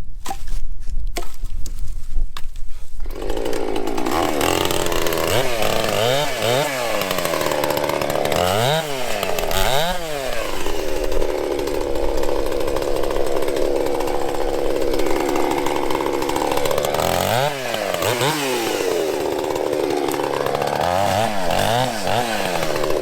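A few sharp knocks, then from about three seconds in a chainsaw runs, revved up and down again and again and held at a steady pitch for several seconds while it cuts small branches off a fallen tree's limbs.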